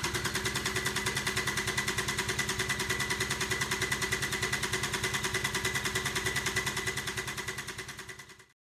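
Kubota D722 three-cylinder diesel engine going with an even, rapid pulsing beat and a steady whine, fading out near the end.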